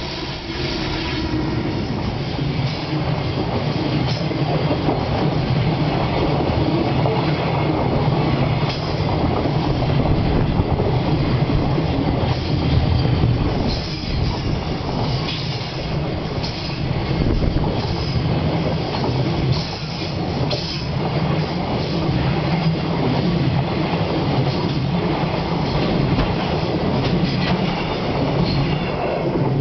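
Long freight train hauled by an EH500 electric locomotive rolling past without a break, a loud steady rumble of wagon wheels with scattered knocks over the rail joints.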